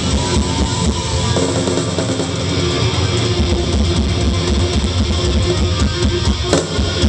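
Rock band playing loud and live, with overdriven electric guitars and a drum kit.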